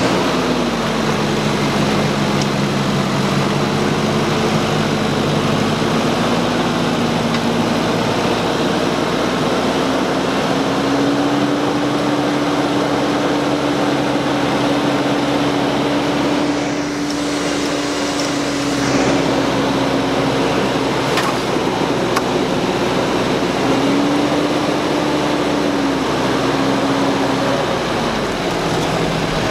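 A 4x4's engine running under load at steady raised revs during a rope-tow recovery from deep mud. The revs step up about ten seconds in, rise again briefly later, and fall away near the end.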